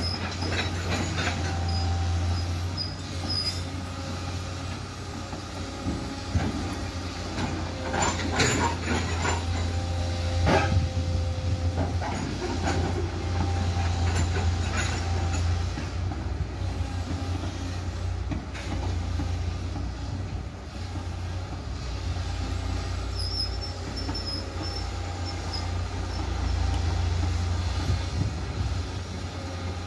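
Ballast work train and excavator: a steady low diesel engine drone throughout, with metallic clanks and ringing from the steel ballast wagons, loudest about eight and ten seconds in, and faint high squeaks.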